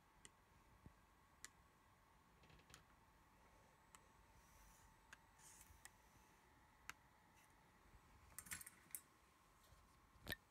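Faint, scattered light clicks of small repair tools on the inside of a Samsung P7510 tablet: a precision screwdriver on the frame screws and a pry tool at the ribbon-cable connectors. There is a quick cluster of clicks about three-quarters of the way through and the sharpest click near the end.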